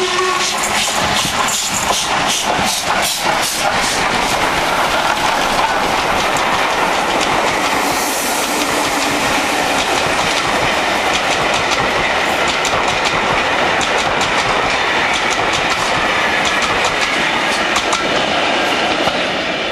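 A pair of steam locomotives, LMS Black Five 45231 and LNER K1 62005, passing at speed with a train of coaches. The locomotives' rapid beats come in the first few seconds, then the coaches roll by with the clickety-clack of wheels over rail joints. The sound fades near the end as the train draws away.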